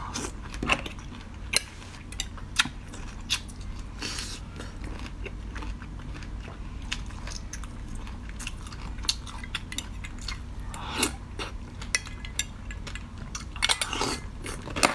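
Ice being bitten and chewed: sharp, irregular crunches and cracks, in denser clusters about four seconds in, around eleven seconds and near the end. A metal spoon clinks against a glass.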